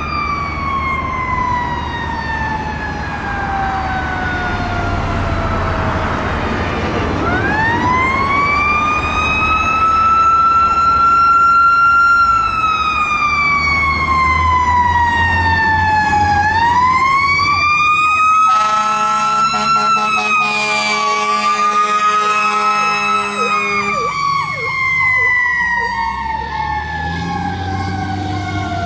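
2000 Seagrave fire engine approaching with its siren sweeping in long, uneven slow falls and rises, over a low engine rumble. A little past the middle its air horns blast for about five seconds.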